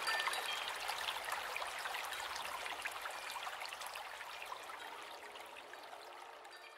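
Steady trickling, water-like hiss with many small crackles, fading out gradually.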